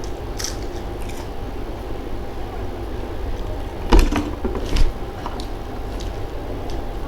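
A person biting and chewing crisp fried food close to the microphone, with two loud crunches about four seconds in and again a moment later, and smaller clicks of chewing before them. A steady low hum runs underneath.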